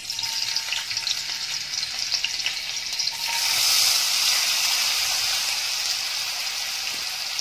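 Hot oil sizzling in a steel pot. About three seconds in, chopped onions are tipped into the oil and the sizzle swells louder, then settles into steady frying.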